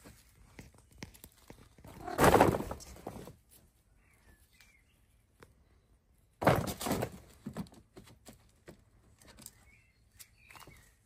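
A woven plastic garden bag rustling and crackling in two loud bursts, about two seconds in and again about six and a half seconds in, with small scattered taps and scuffs between.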